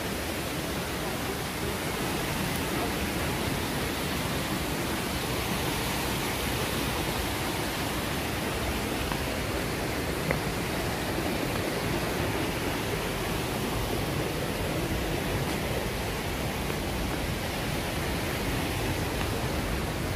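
Steady rush of a rocky stream cascading down a series of small falls over stone steps.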